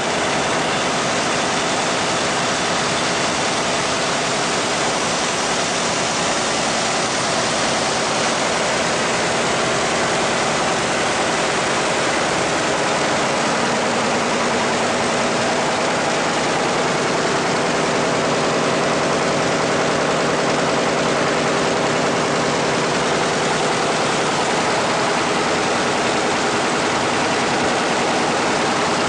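Winkler+Dünnebier 527 envelope-making machine running: a steady, dense mechanical din with several even hum tones, holding the same level throughout.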